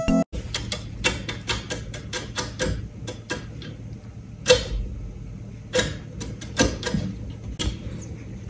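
Irregular light clicks and taps, a few a second, as a cat grapples with the wooden rung of a chair, claws and teeth on the wood, with one louder tap about halfway through.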